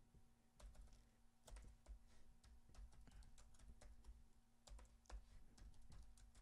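Faint, irregular keystrokes on a computer keyboard as a password is typed in.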